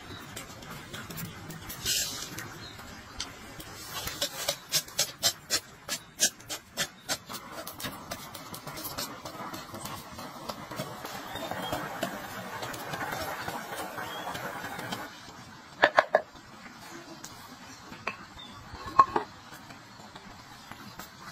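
Cooking sounds: about a dozen quick, sharp knocks in a row, then a pot of fish boiling with a steady bubbling hiss for several seconds, then a few loud knocks.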